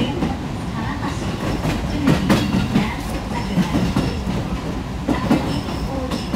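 Passenger train running along the rails, heard from inside the carriage: a steady rumble of wheels on track, with sharp clacks as the wheels cross rail joints about two seconds in and again about five seconds in.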